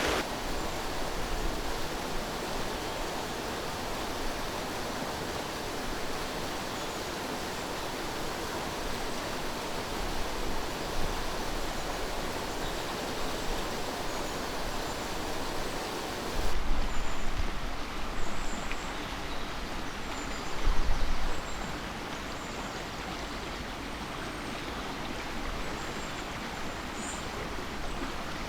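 Steady rush of a running stream. About halfway through the high hiss thins and the sound changes, and two brief low rumbles follow.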